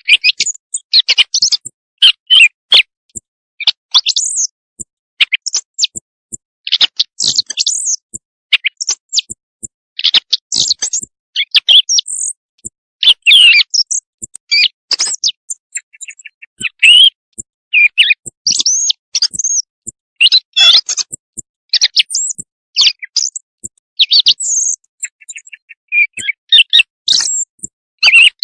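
Recorded quail calls used as a night-time hunting lure: rapid, high-pitched chirps and short trills in quick bursts with brief gaps between them, repeating throughout.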